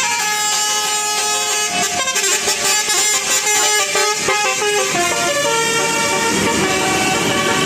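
Telolet basuri musical horn on a vehicle playing a tune of stepped notes, quicker in the middle and with longer held notes near the end.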